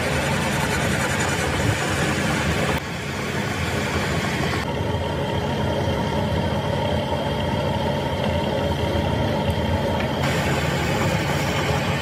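Metal lathe running while a cutting tool turns down the end of a steel truck countershaft: a steady machine hum that shifts abruptly about three seconds in and again near ten seconds.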